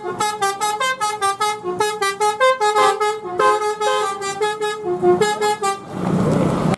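Basuri 'telolet' multi-tone bus horn on a Braga Trans bus playing a fast tune of short stepped notes, several a second, which stops about six seconds in; after it, a rush of wind noise.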